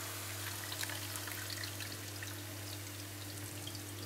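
Hot oil sizzling and crackling in a frying pan, with oil dripping back into the pan from a fried hojuela held above it on a slotted spoon to drain.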